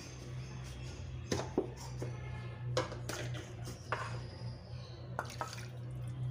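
Scattered light clinks and taps of kitchen utensils, about seven in all, over a steady low hum. Near the end, water starts pouring from a bowl into the pot of curry.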